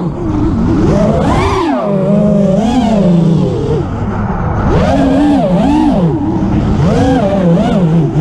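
FPV quadcopter's electric motors and propellers whining, the pitch swooping up and down again and again as the throttle changes, picked up by the drone's onboard camera.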